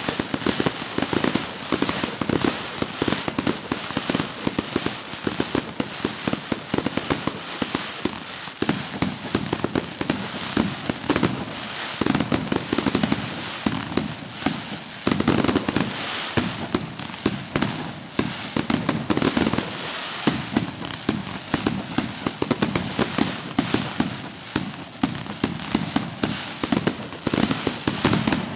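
Fireworks display: a dense, unbroken string of sharp bangs and cracks, with deeper booms coming in clusters every few seconds.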